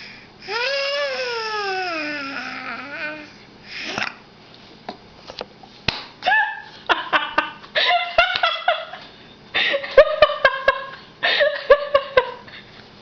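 A baby's long sing-song vocal that glides up and then down in pitch, followed by quick bursts of laughter and babbling, mixed with sharp taps of hands on the high chair's plastic tray.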